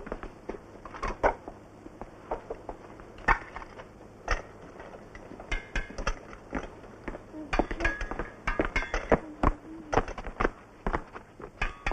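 Irregular knocks and clatter, with a few short ringing clinks of bowls and crockery in the middle.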